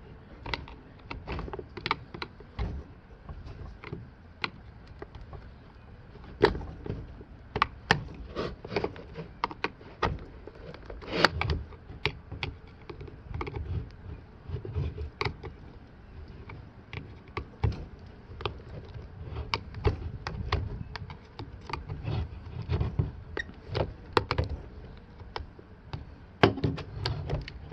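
Screwdriver prying and scraping a flexible foot pad over the plastic lip of a Jacuzzi J-D300 pool cleaner body, with irregular clicks and knocks of the tool and the plastic and the cleaner being handled.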